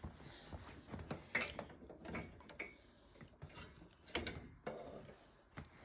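Faint, irregular mechanical clicks and light rattles, a few at a time, with a short cluster of them about four seconds in.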